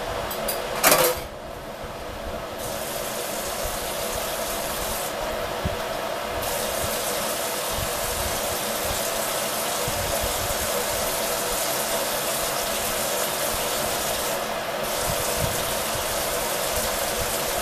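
Kitchen faucet running water at the sink, a steady rush, with a sharp clink of a dish about a second in.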